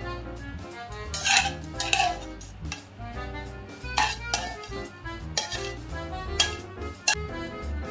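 Metal kitchen tongs clinking against a metal pan and a ceramic plate while pasta is served, about six sharp clinks, loudest about a second and a half and two seconds in, over background instrumental music.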